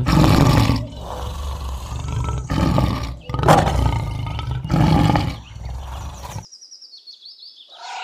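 Lion roaring: a series of deep, loud roars that cut off suddenly about six and a half seconds in. Faint bird chirps follow near the end.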